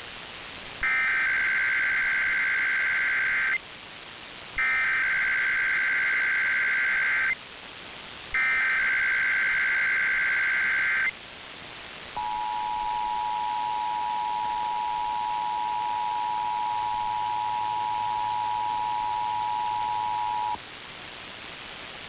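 Emergency Alert System test tones received over AM radio. Three bursts of SAME digital header data, each about three seconds long, come first. The two-tone attention signal follows and holds steady for about eight seconds. Static hiss runs underneath throughout.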